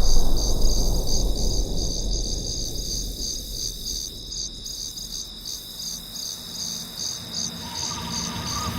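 Crickets chirping in a fast, steady trill, a cartoon sound effect. Under it the low rumble of an explosion dies away, and a faint steady tone comes in near the end.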